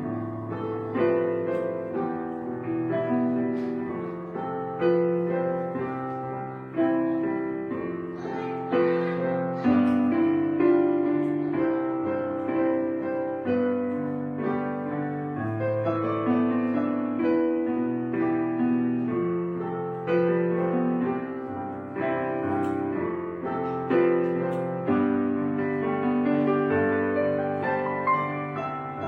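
Background piano music: slow, gentle notes and chords struck one after another.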